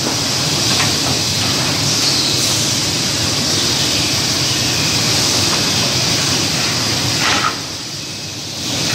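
Steady loud hiss and hum of woodworking factory machinery, with a few faint knocks of wooden strips being handled. The noise drops off for about a second about seven and a half seconds in, then comes back.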